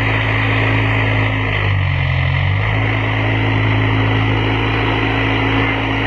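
Case backhoe loader's diesel engine running steadily under load as the rear arm pushes at the building, its pitch dipping and recovering briefly about two seconds in.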